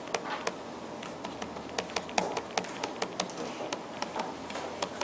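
Light, irregular clicks and taps of a pen stylus on a tablet as words are handwritten, several a second, over faint room noise.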